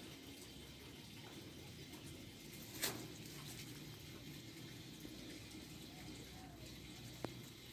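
Faint, steady background noise with a sharp click about three seconds in and a smaller tick near the end.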